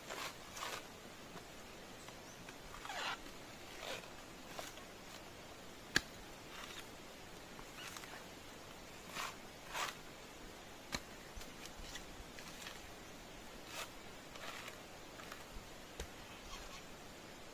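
Coconut husk being peeled: short, irregular tearing and scraping strokes every second or two as the fibres are pulled away, with one sharp click about six seconds in.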